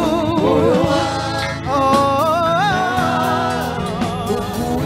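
Live gospel band music: keyboards, bass guitar and drums playing under a singer holding long, wavering notes between the lines of a Swahili praise refrain.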